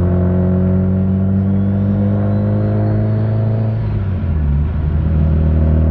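Mitsubishi Lancer Evolution VIII's turbocharged four-cylinder engine pulling under acceleration, heard from inside the cabin. The engine note rises slowly with a faint high whine above it, then the revs drop about four seconds in and the engine settles to a steady note.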